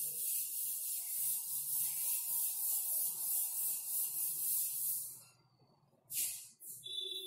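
Chalkboard duster rubbing across a chalkboard in quick, even back-and-forth strokes, stopping about five seconds in. A couple of short chalk scrapes follow near the end.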